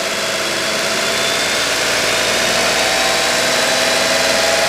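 Tata Altroz's 1.2-litre three-cylinder petrol engine held at raised revs of about 3000 rpm, with the AC compressor switched off. The sound rises a little in the first second, then runs steady.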